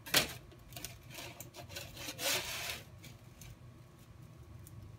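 Aluminum sheet being handled at a manual combination shear: a sharp metal clack at the start, a scraping slide of sheet metal a little after two seconds, then a few light clicks.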